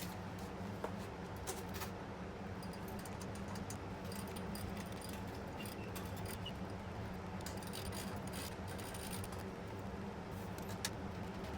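Scattered metallic clicks and clinks of hand tools and exhaust hardware being worked while a motorcycle's stock silencer is unbolted, over a steady low hum.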